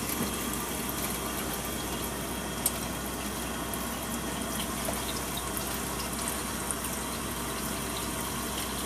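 Water running steadily, with a sharp tick about two and a half seconds in.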